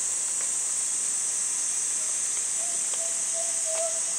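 Cicadas singing in a steady, high-pitched chorus, with a few faint clicks.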